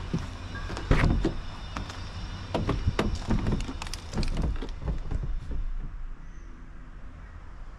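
A Volkswagen sedan's rear door being opened by hand: a sharp latch clunk about a second in, then a run of smaller knocks and rattles as the door is swung open and handled.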